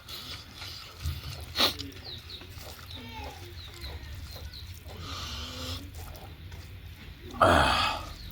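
Short animal calls in the background, with a sharp click about a second and a half in and a loud, noisy burst lasting under a second about seven seconds in.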